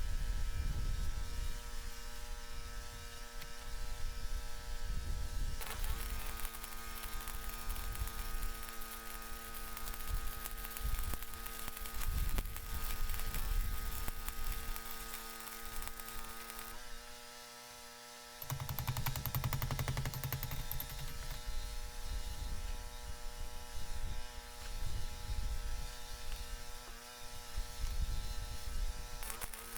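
Steady electrical hum of a stick (arc) welding machine switched on and waiting, with low wind rumble on the microphone. A louder buzz comes in for a few seconds a little past halfway.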